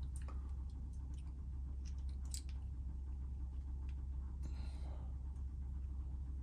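Faint scattered clicks and a brief scrape of small metal parts being handled as two Torx bolts for a chain tensioner pad are started by hand. A steady low hum runs under it.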